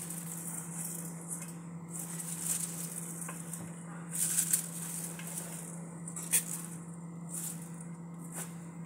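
Shredded cabbage and carrot strips rustling and crinkling as handfuls are pushed out of a plastic bag into a metal pot, in irregular bursts with a sharp tick about six seconds in. A steady low hum runs underneath.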